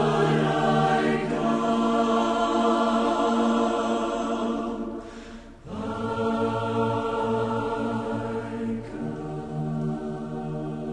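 Slow, sustained church music in long held chords, with a short break about five seconds in before the next chord begins.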